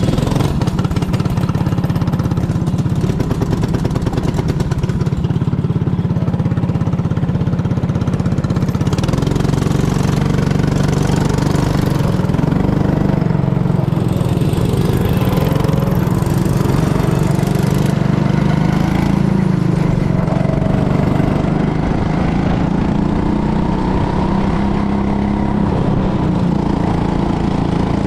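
Go-kart's small engine running steadily while the kart is driven round the track, its pitch rising and falling a little with the throttle.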